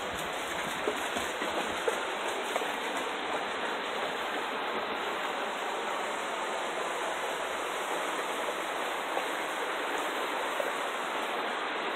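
Mountain river running high and fast with snowmelt runoff: a steady rush of water.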